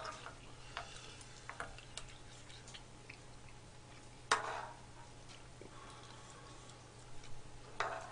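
Eating utensils clicking and tapping: a wooden ladle scraping in an electric pan of soup and a metal spoon and chopsticks against a bowl, in scattered light taps with one sharper clink about four seconds in and another near the end.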